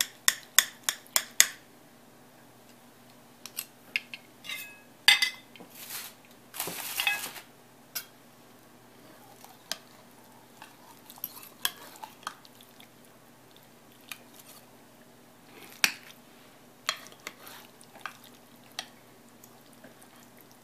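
Metal fork and knife clinking and scraping against a ceramic baking dish while cutting into a baked lasagna: a quick run of clicks at the start, scattered taps after, and a longer scrape about six to seven seconds in.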